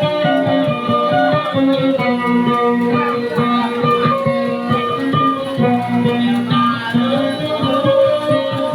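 Plucked string instrument music: a quick repeating melody played over sustained low drone notes.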